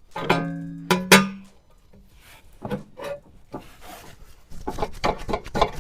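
Two sharp metal clanks, each ringing on briefly, about a second apart, then lighter knocks and rattles. These are steel suspension parts or tools striking each other during front suspension work.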